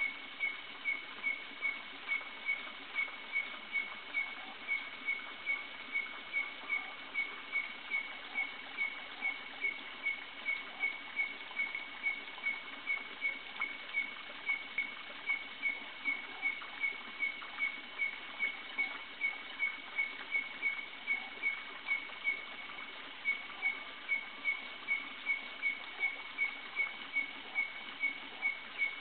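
A night-calling animal repeating a short, high chirp at one steady pitch, about two a second in an even rhythm, with one brief pause about three quarters of the way through.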